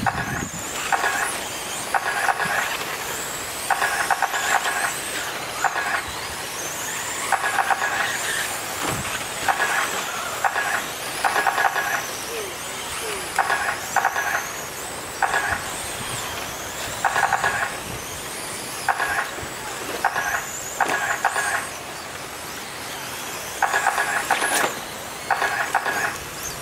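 Electric RC dirt oval cars racing, their motors whining high and rising and falling in pitch as they speed up and slow through the turns. Short loud electronic beeps sound over them about once a second, the lap-timing system counting cars across the line.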